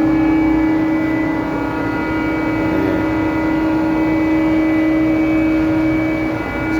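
Loud, steady drone of heavy machinery during container loading on a cargo ship, with one strong humming note and fainter higher notes held unchanged throughout.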